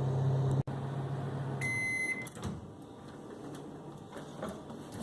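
Microwave oven running with a steady low hum that stops about 1.7 seconds in, as a single electronic beep sounds: the end of the cook cycle, with the semolina for the kesari cooked.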